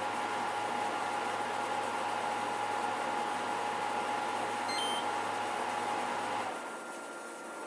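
Samsung window air conditioner (AW05B5171TWA) running with a steady mechanical whine over a low hum, the machine noise the owner finds anything but quiet. There is a faint short beep about five seconds in. A little later the whine and hum cut off and the sound drops to a quieter steady whir.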